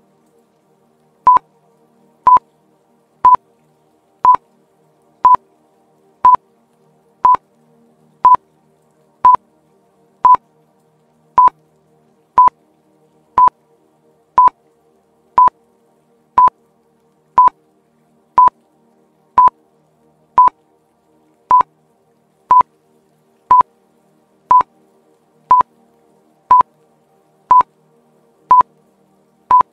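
Quiz countdown timer beeping once a second, short beeps all at one pitch, over faint background music.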